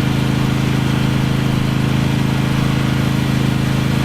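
John Deere 100-series riding lawn mower engine running steadily at an even, unchanging speed.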